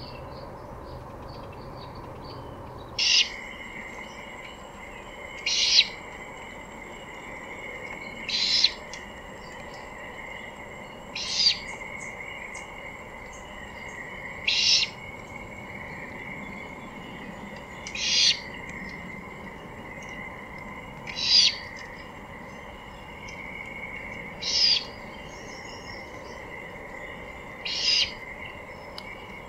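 Young great horned owl giving a short raspy screech about every three seconds, nine times, over a faint steady high tone.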